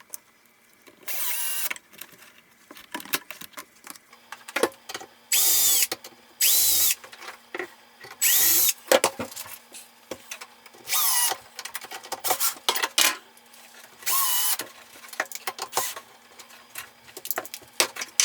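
Hitachi 10.8 V cordless drill/driver driving Robertson screws in about six short runs, each under a second, the motor whine rising and falling, with clicks and rattles of handling in between.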